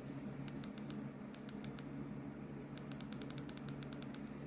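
Short runs of small, sharp plastic clicks from computer controls being worked: a few spaced clicks, then a fast run of a dozen or so near the end. A steady low hum sits underneath.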